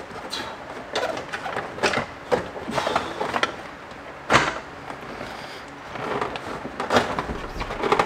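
Scattered knocks, taps and rubbing of a car dashboard being worked loose against the steering column, with the loudest knock about four seconds in.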